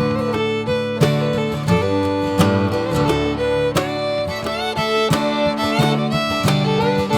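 Background music: an acoustic instrumental with plucked guitar and a fiddle-like melody, played steadily throughout.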